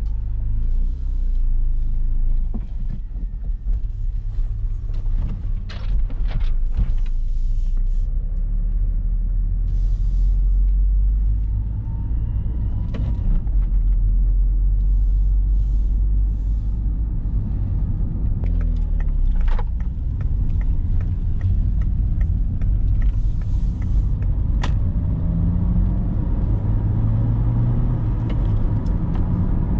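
Citroën car heard from inside the cabin while driving: a steady low engine and road rumble, with the engine note falling and rising as the car changes speed, and a few light clicks and knocks.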